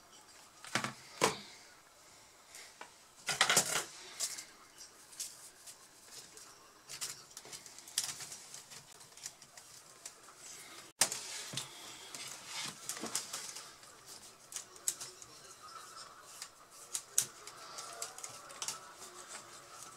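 Sporadic small clicks, taps and scrapes of hand tools and plastic parts on a laptop palmrest being worked on by hand. There are two louder clicks about a second in and a louder cluster of knocks a few seconds in.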